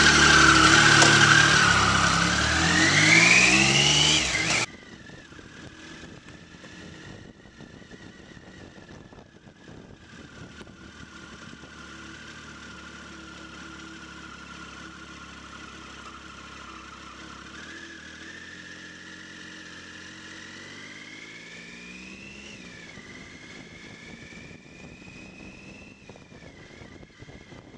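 Motorcycle engine pulling away with its revs rising, loud at first. About four and a half seconds in it cuts suddenly to a much quieter steady engine note heard from on the bike. Later the revs climb, drop sharply, and climb again.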